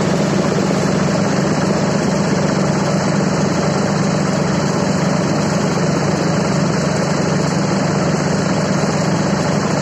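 Mahindra Yuvo 575 DI tractor's diesel engine running steadily while driving a large shaft-driven winnowing fan, its spinning blades blowing a strong, even rush of air.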